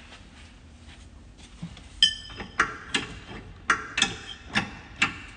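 Low background hum, then from about two seconds in a string of sharp metallic clinks, roughly two a second, the first with a brief ring: steel bolts knocking against the driveshaft's front yoke flange as they are started by hand.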